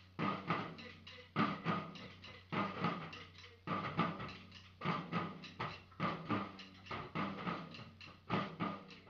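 Drums struck in a steady rhythm, about three strikes a second, over a low steady hum.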